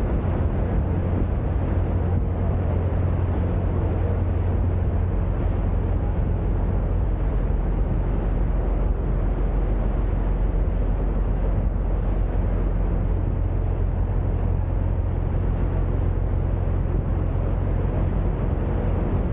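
Boat engine running with a steady low drone, mixed with wind noise on the microphone.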